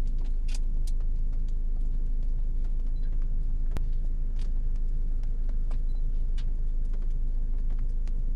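Steady low rumble of an idling vehicle heard from inside the cab, with scattered sharp taps of the first drops hitting the windshield.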